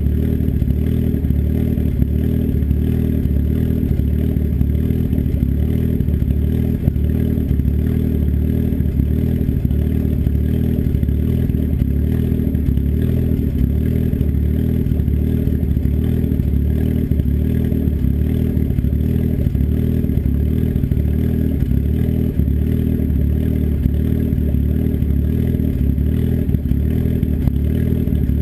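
Turbocharged engine with an S257 turbo and custom cams idling steadily through an open 3-inch turn-down dump off the downpipe, still warming up after a cold start.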